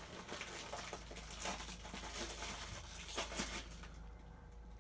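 Faint, irregular crinkling of a crisp packet and crunching of crisps being eaten close to the microphone.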